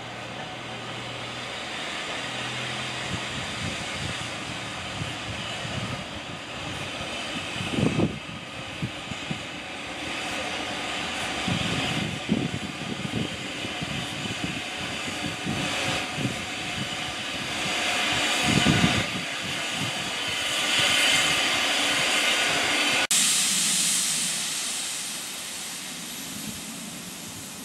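WD 2-10-0 steam locomotive running slowly in with a train of coaches, a steady hiss of steam with a few scattered low thuds. The hiss swells near the end, then changes abruptly.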